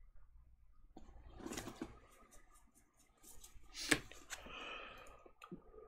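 Sleeved playing cards being handled over a table: soft rustling and sliding of cards, with a sharp click about four seconds in.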